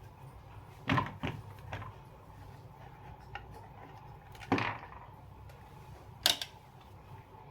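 Tools and parts knocking and clicking as a ceiling fan is taken apart: several short sharp knocks, the loudest about one, four and a half and six seconds in.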